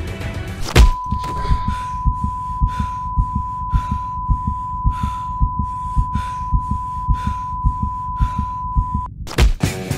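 Edited sound effects for a fight scene: a loud hit, then one steady high-pitched ringing tone, the dazed-after-a-blow effect, held over a regular heartbeat-like thumping. The tone cuts off near the end, and a second hit brings the music back in.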